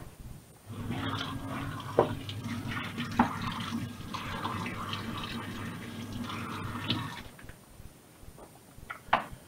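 Kitchen tap running into a stainless steel sink while a knife is scrubbed with a washing-up brush under the stream, with a few sharp clicks. The water stops about seven seconds in, and one more click comes near the end.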